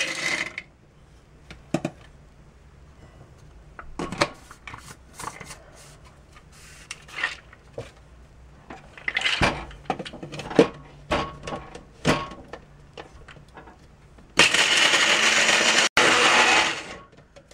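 Roasted cashews rattling into the clear plastic cup of a small electric blade grinder, with clicks and knocks as the cup is handled and fitted onto its base. Then the grinder runs loud for about two and a half seconds, cutting out for an instant partway, chopping the cashews.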